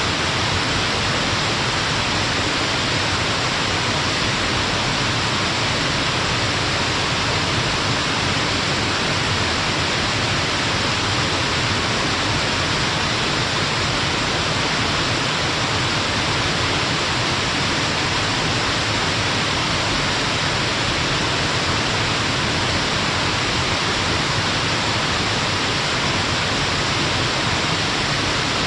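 Stepped waterfall on a mountain river, water cascading down rock steps in a steady, even rush of white water.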